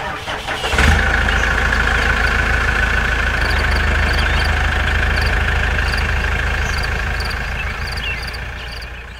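Engine sound starting abruptly about a second in, then running steadily and fading out near the end.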